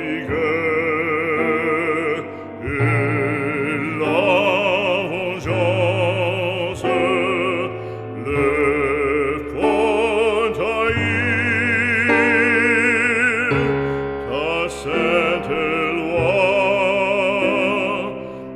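Background music: operatic singing with a strong vibrato over a sustained low accompaniment.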